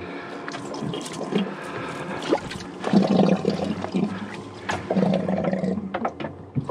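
Water running and gurgling, as from the boat's livewell circulating, with scattered clicks and knocks; it swells louder twice, about three and five seconds in.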